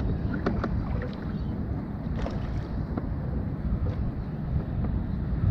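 Fishing kayak moving across calm water: a steady low rumble of wind on the microphone and water along the hull, with a few light clicks and knocks from the boat.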